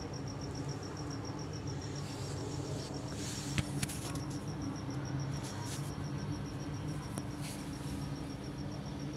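Insect chirping: a steady run of high-pitched pulses, about seven a second, over a low steady hum. A few soft clicks and rustles from hands handling the nest come between about three and eight seconds in.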